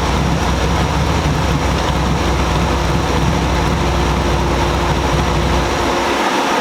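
Harley-Davidson Road Glide's Milwaukee-Eight V-twin running loud and steady through a Khrome Werks 2-into-1 exhaust on a dyno, with a steady rushing noise over it. The engine's low rumble drops away about six seconds in while the rushing noise carries on.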